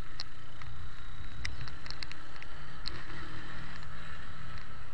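Mondial Zone 150 motorcycle running on the move, with wind buffeting the microphone as a steady low rumble. A few faint short high ticks come through.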